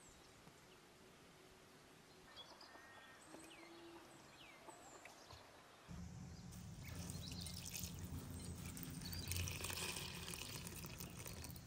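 Faint bird calls, then, from about six seconds in, water poured from a jug into a glass bowl of dry soy granules, a steady splashing pour as the granules are soaked.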